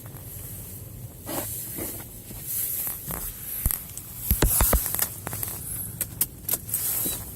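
Blizzard wind blowing in gusts, a steady rumble and hiss that swell and ease, with many sharp clicks and knocks, thickest from about four seconds in.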